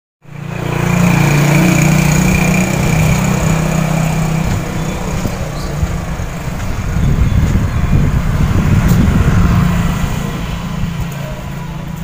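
A vehicle engine running steadily close by, a low hum that grows rougher and more uneven about halfway through, over outdoor street noise.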